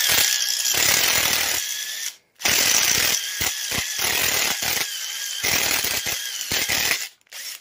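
Cordless impact driver spinning a step drill bit through the stamped-steel flange of a pillow block bearing to enlarge its bolt hole: a rattling grind with a steady high whine. It stops briefly about two seconds in, then runs again with several short pauses and cuts off near the end.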